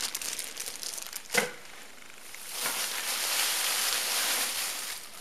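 Plastic packaging bags crinkling and rustling as they are handled, with a single light knock about a second and a half in and a longer, louder stretch of rustling in the second half.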